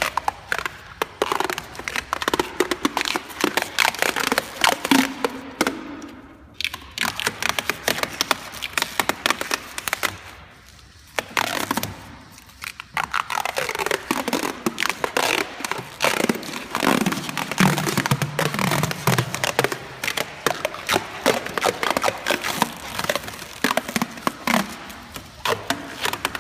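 WrapWorkers liquid-vinyl (peelable rubber) coating being peeled off a car's painted door by hand: a dense run of crackling as the film comes away from the metal, easing off briefly about six and ten seconds in.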